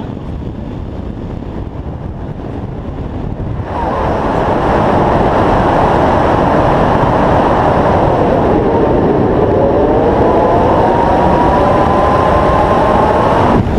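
Wind rushing hard over an action camera's microphone during a tandem parachute descent. It grows much louder about four seconds in and carries a tone that rises near the end.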